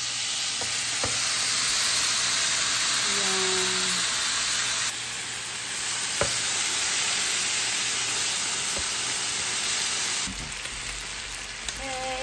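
Marinated beef short ribs (kalbi) sizzling on an electric griddle as they are laid down and turned with metal tongs, with a few sharp clicks of the tongs against the griddle.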